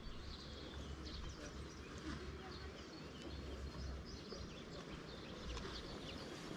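Small birds chirping and twittering again and again, over a low rumble of outdoor background noise.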